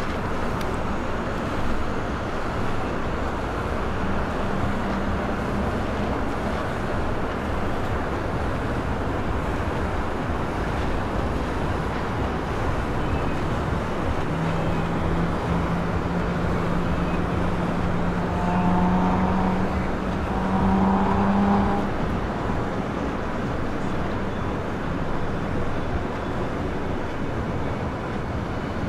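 Steady rumble of boat engines and churning water as a large motor yacht passes close by. A low engine hum comes in about halfway through, rising slightly in pitch for several seconds before dropping out.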